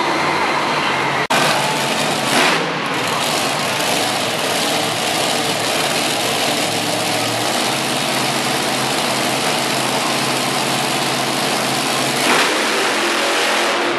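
Monster truck engine running loud and continuously, with a brief sharp dropout about a second in.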